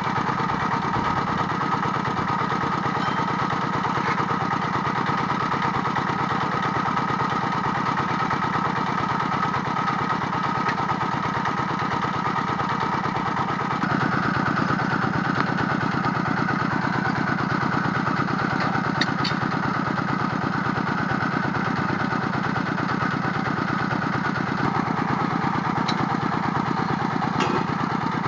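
Drilling rig's engine running steadily. About halfway through, its sound gets a little louder and brighter and stays that way.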